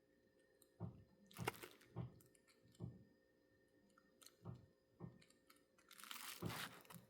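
Faint, scattered taps and clicks of small model-locomotive parts being handled and fitted by hand, with a louder rustle of handling about six seconds in.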